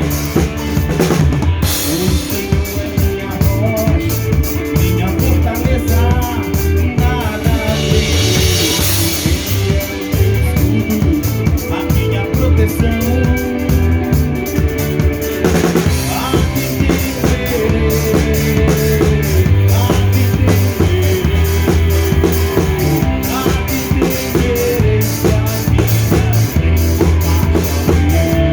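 Live band playing an instrumental passage: a drum kit with bass drum, snare and cymbals keeps the beat over sustained bass notes and pitched instruments, with a cymbal swell about eight seconds in.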